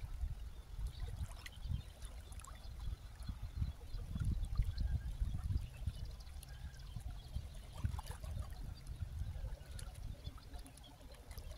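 Small waves lapping and trickling at the water's edge, under a gusty wind rumble on the microphone.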